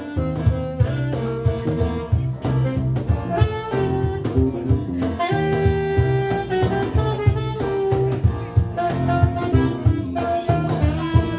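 Upbeat jazz music with saxophone over a walking bass line and drum kit.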